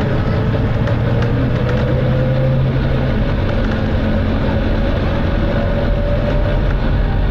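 Volvo B9TL double-decker bus running under way, its engine and transmission making a steady loud drone with a held whine over it. The low engine note changes about three seconds in.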